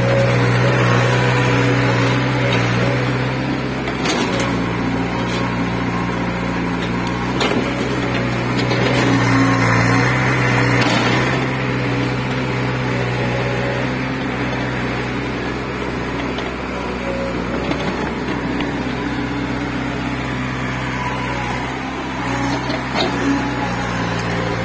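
Caterpillar excavator's diesel engine running steadily while the boom and bucket dig, its note shifting slightly up and down several times.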